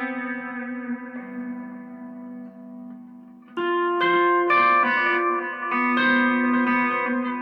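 Guitar music played through effects: a held chord fades away over the first three seconds, then new plucked notes and chords come in loudly about three and a half seconds in.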